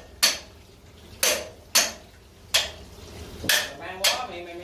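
Hammer blows on metal, about six irregular strikes, each ringing briefly.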